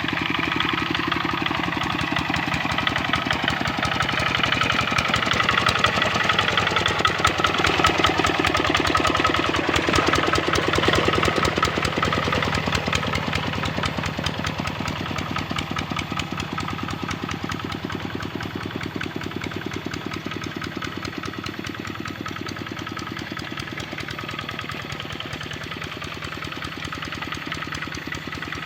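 Kubota RD65 single-cylinder diesel engine of a hand tractor running steadily with a rapid, even firing beat; it grows louder over the first ten seconds or so, then slowly eases off.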